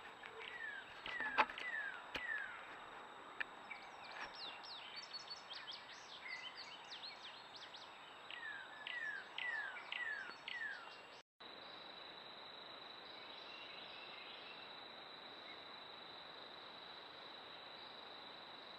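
Wild birds calling: repeated short, falling whistled notes in runs of three or four, mixed with higher quick chirps, and one sharp click about a second and a half in. About two-thirds of the way through, the sound cuts to a steady, high-pitched insect drone.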